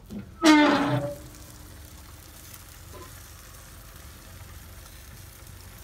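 The steel lid of an Oklahoma Joe's offset smoker creaks on its hinges as it is swung open, a short squeak about half a second in and the loudest sound. It is followed by a steady, faint sizzle from the smoking pork shoulders in their foil pans.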